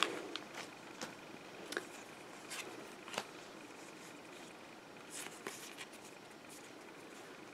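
Pokémon trading cards being handled in the hands, giving faint, scattered soft clicks and slides as the cards are shifted, with a faint steady high tone underneath.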